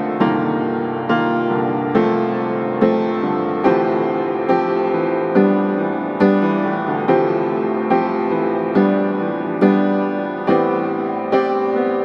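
Background piano music, single notes and chords struck at an even pace of about one a second, each fading before the next.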